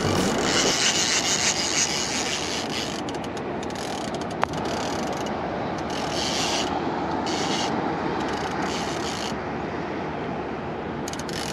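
Spinning fishing reel being cranked in spurts while a fish is played on the line, its mechanism rubbing and ratcheting under a steady background hiss; a single sharp click comes about four and a half seconds in.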